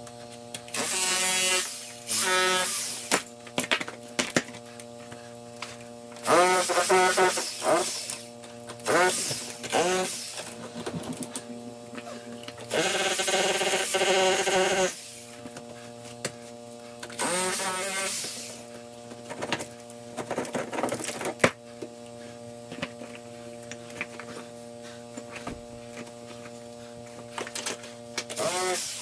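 Background music: sustained steady chords throughout, with louder wavering melodic phrases coming and going every few seconds.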